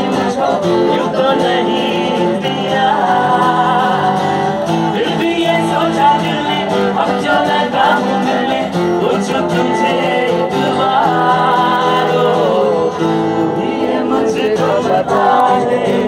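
A man singing into a microphone with strummed acoustic guitar accompaniment, live street music.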